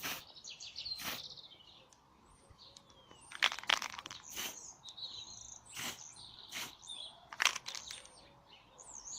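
Small birds chirping repeatedly, with several short, sharp bursts from an aerosol spray-paint can sprayed in quick taps to speckle paint on; the bursts are the loudest sounds.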